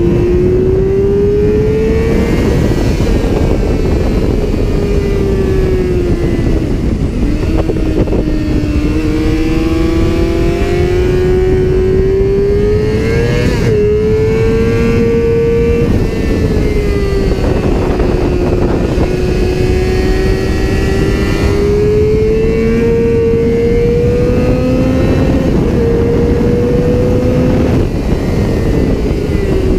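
Yamaha YZF-R6 inline-four engine running hard on a race track, its pitch climbing and falling in steps as the rider accelerates, shifts gear and slows for corners. Heavy wind rushing over the microphone underneath.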